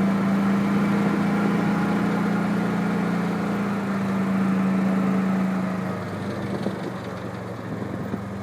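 An engine idling with a steady hum that drops to a quieter, lower hum about six seconds in.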